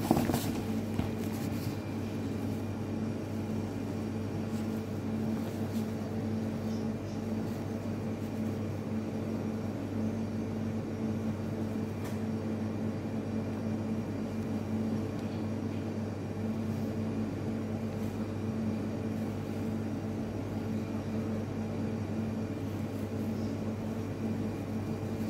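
Steady low machine hum made of a few even tones, unchanging throughout, with a single tap or click right at the start.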